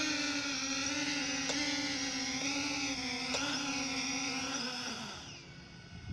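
The CG035 quadcopter's brushless motors and propellers whine steadily as it settles into its landing. About five seconds in, the motors spin down and the whine falls in pitch and fades out.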